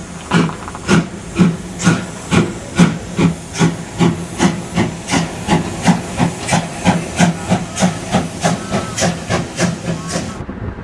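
Prussian P8 steam locomotive 638.1301 working hard as it pulls its train, its exhaust chuffing in sharp, even beats over a steady hiss of steam. The beats quicken from about two to about three a second as the engine gathers speed. Near the end the hiss drops away abruptly.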